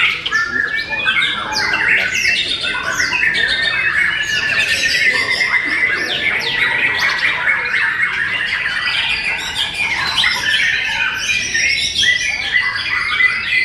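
White-rumped shamas (murai batu) singing: several birds at once, a dense, unbroken mix of quick whistled phrases and harsh chattering calls.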